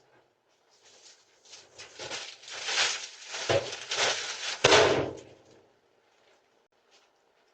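Scraping and clattering that builds up, with two heavy thuds about three and a half and four and a half seconds in, then dies away.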